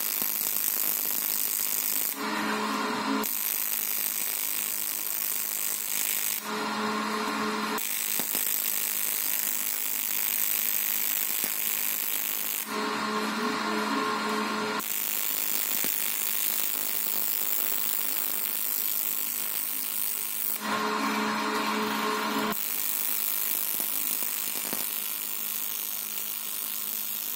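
TIG welding arc on an aluminium bicycle frame: a steady hiss and buzz in five long runs, broken four times for a second or two while the arc is off and only a low hum remains.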